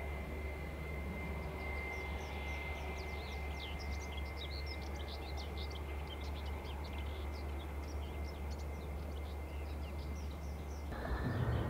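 Airbus A320-family airliner's jet engines at taxi idle: a steady thin whine over a low rumble, with songbirds chirping quickly and repeatedly over it from about a second in. Near the end the whine cuts off and a louder low rumble takes over.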